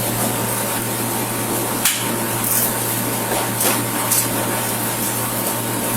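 Steady cabin noise inside a police patrol car: an even hiss over a constant low hum, with a few faint clicks.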